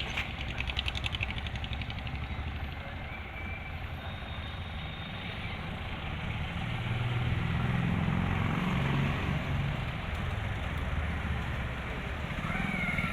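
Tractor engine running under a loader-backhoe attachment. It steadies at first, then works harder and louder for a few seconds in the middle before easing slightly.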